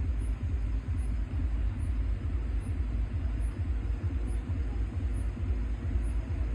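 Bass-heavy EDM played loud over a festival sound system, its low end booming and smeared, with a faint high tick repeating a little faster than once a second.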